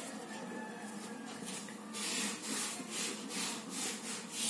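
Ballpoint pen writing on a sheet of paper: a run of short scraping pen strokes, a few per second, as letters are written out.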